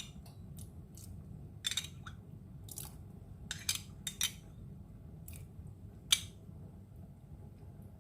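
Kitchen utensils clinking and tapping, a spoon against dishes and glassware in a dozen or so sharp clicks, the loudest about six seconds in, over a steady low hum.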